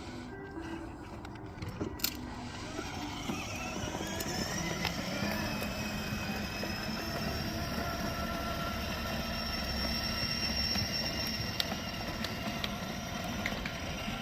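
Electric drive motors and plastic gearboxes of a 12-volt kids' ride-on car whirring steadily as it drives, with a faint whine that rises in pitch in the first few seconds and a few light clicks.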